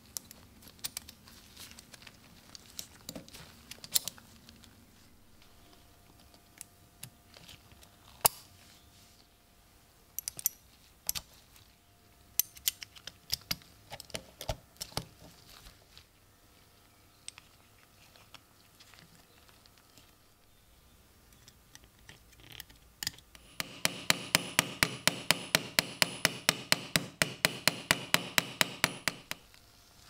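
Small metal pocket-knife parts clicking and knocking as they are handled and fitted together on a cloth-covered bench. Near the end comes a fast, even run of sharp taps, about six a second for roughly five seconds.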